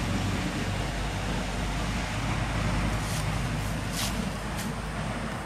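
Handheld fuse-lit smoke grenade firework burning with a steady rushing hiss over a low rumble. A few short high-pitched ticks come about three to four and a half seconds in.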